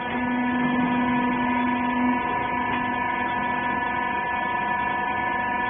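Hydraulic rags baler's power unit running with a steady electric hum of several fixed tones while the press is raised; the lowest tone fades out about two seconds in.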